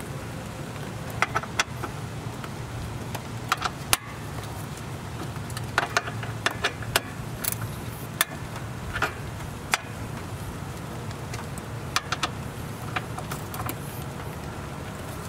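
Sharp metallic clicks and clinks of a hand ratchet and socket as the hood latch's mounting bolts are driven back in, coming irregularly in pairs and small clusters over a steady low hum.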